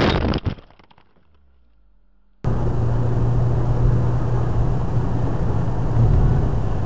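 A sudden loud crash-like impact, with a second knock about half a second later. From about two and a half seconds in, the steady engine and tyre noise of a car driving on a snowy road, heard from inside the car.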